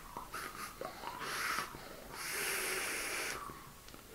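Breath sounds of a man vaping an electronic cigarette. There are a few short draws, then one longer, louder breath of about a second, starting about two seconds in, as the vapour is taken in and blown out.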